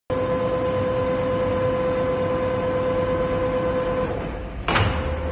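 Titan SC 14 vertical turret lathe running under pendant control: a steady whining tone that stops about four seconds in, then a sudden clunk, after which a low hum carries on.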